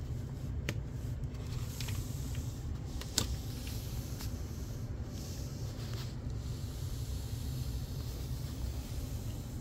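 Steady low background hum with a few faint clicks and light rustles of handling.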